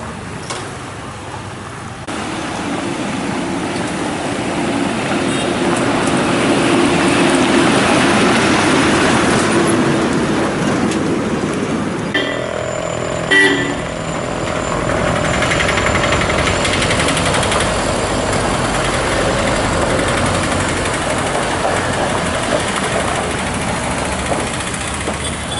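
Motor vehicles passing on a road one after another, each swelling and fading, with a short horn toot about halfway through.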